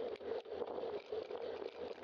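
Steady rushing, fluttering noise of riding a bicycle: wind buffeting the bike-mounted camera's microphone, mixed with road noise.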